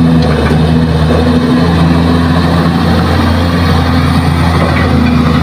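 Kobelco SK200 hydraulic excavator's diesel engine running loud and steady under working load, its low hum wavering slightly as the machine dumps a bucket and swings.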